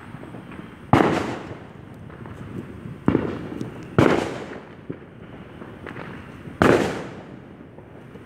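Fireworks going off: four separate loud bangs, about a second in, around three and four seconds, and again near six and a half seconds, each trailing off in an echo.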